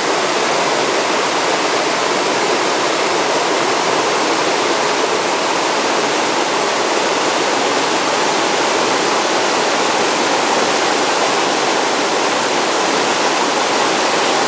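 Fast mountain stream rushing white over rocks and boulders, a steady, unbroken rush of water.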